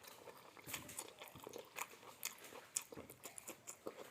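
A person chewing a mouthful of ketoprak, with many short, irregular crisp crunches of fried onion crackers (kerupuk bawang) being bitten and chewed.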